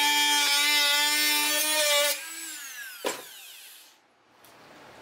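Dremel rotary tool with a cut-off wheel running at a steady high-pitched whine, then switched off about two seconds in and winding down in falling pitch. A single sharp knock comes about three seconds in.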